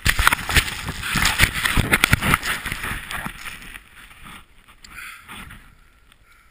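Action camera handled by a gloved hand: loud rubbing and knocking against the housing for about three seconds while it is swung around. After that comes a quieter rushing of a snowboard riding through deep powder snow.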